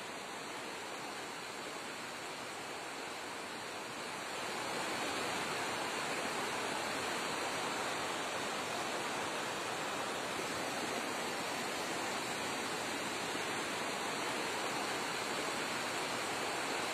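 Swollen river in flood rushing past: a steady rush of water that grows a little louder about four seconds in.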